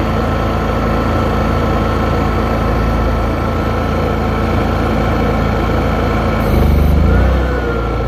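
Honda EU7000iS fuel-injected inverter generator running steadily. About six and a half seconds in, its sound swells lower and louder for about a second as the Carrier 3-ton heat pump's compressor starts on it without a hard-start kit. Its tone then rises again as the engine takes up the load.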